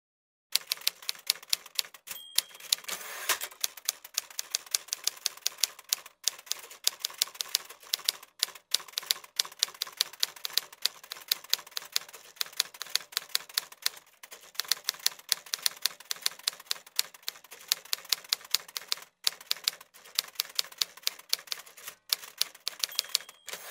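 Typewriter keys clacking in fast, uneven runs with short pauses, starting about half a second in, as a sound effect for text typing out on screen. A brief high ring sounds about two seconds in and again near the end.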